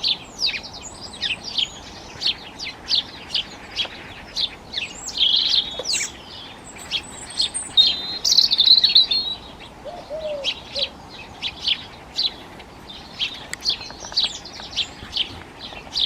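Small songbirds chirping all around, many short repeated chirps overlapping, with longer, louder twittering phrases about five and eight seconds in.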